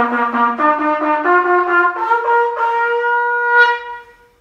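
Trumpet playing a short rising fanfare: notes climb upward in steps, and the last, highest one is held for about two seconds before it stops.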